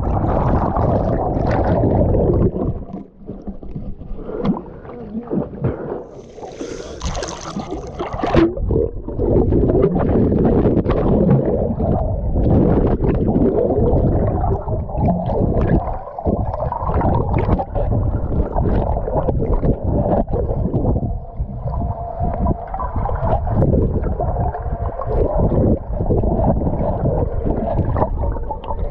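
Water heard from underwater: a muffled, rumbling rush and gurgle of moving water and bubbles, with frequent knocks and swishes as a swimmer moves close by, and a brief higher hiss about seven seconds in.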